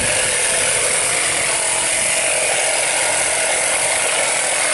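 Small portable tyre inflator's piston compressor running steadily with a rapid mechanical clatter, inflating a car tyre.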